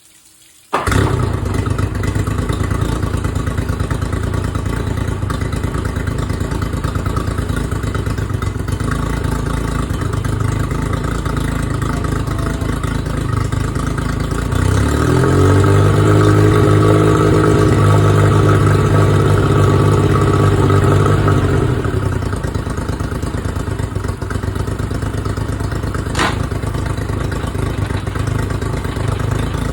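Honda 50 hp four-stroke outboard motor running, coming in abruptly under a second in. About halfway it is revved up, held higher for several seconds, then drops back to a steady idle; a single sharp click near the end.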